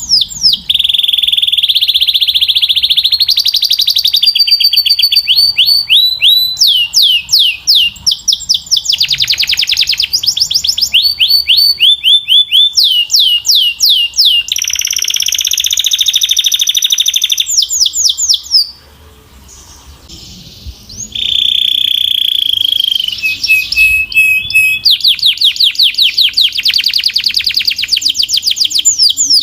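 Domestic canary singing a long song of fast repeated notes and trills, high-pitched, changing from one phrase to the next. A brief pause comes about two-thirds of the way through.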